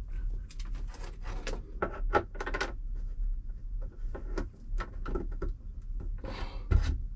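Handling noise: a cable being pulled through a wooden hatch frame and worked by hand against a bulkhead, a run of irregular rubs, scrapes and light knocks over a steady low rumble.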